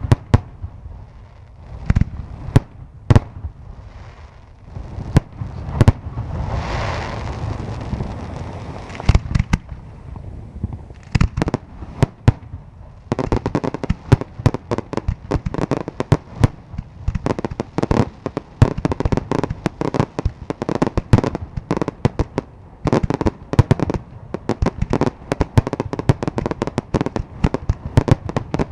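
Aerial firework shells bursting: scattered single bangs with a rushing hiss about seven seconds in, then, from about thirteen seconds in, a dense rapid barrage of bangs and crackle.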